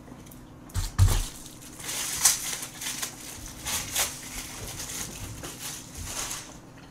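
Close-up crunching and crackling while food is handled and eaten, a run of short sharp noises, with a thump about a second in.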